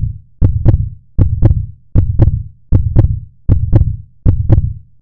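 A loud, steady heartbeat-style beat: a deep low thump with a double sharp hit, repeating about every three-quarters of a second, like a lub-dub pulse.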